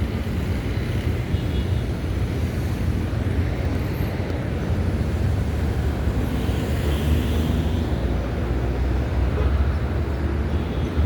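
Steady low rumble of passing road traffic, with no single vehicle standing out.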